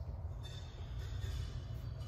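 Steady low rumble of a large industrial workshop's background, with a faint thin high whine coming in about half a second in.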